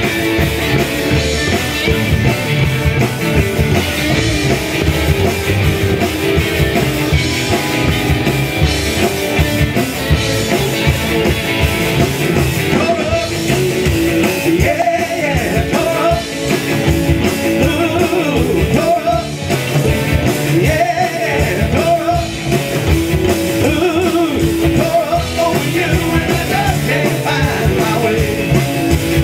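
A live rockabilly band playing: electric guitars, upright double bass and drums, with a lead vocal over it.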